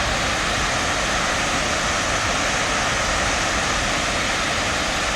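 Steady rushing of Chitrakote Falls, a wide waterfall on the Indravati River, an even unbroken noise.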